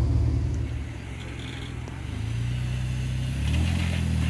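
A Jeep's engine running under load off-road. It eases off about a second in, then revs back up in two steps, around two and three and a half seconds in.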